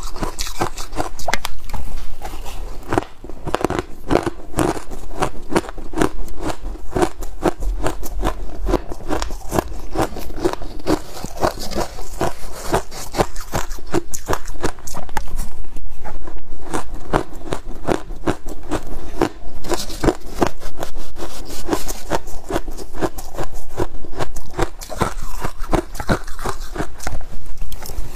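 Close-miked chewing of finely shaved ice, a fast, continuous stream of crisp crunches. A metal spoon scrapes and scoops ice from a steel blender jug at times.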